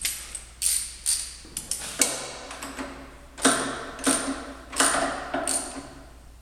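Repeated sharp metallic clacks, each with a short ring, as the hand wheel and worm drive of a Kearney and Trecker Autometric jig borer are worked by hand. The clacks come irregularly at first, then settle to about one every two-thirds of a second.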